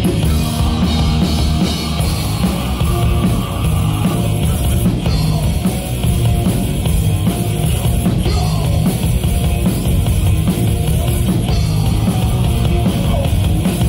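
Live rock band playing loud and steadily: electric guitars, bass guitar and drum kit.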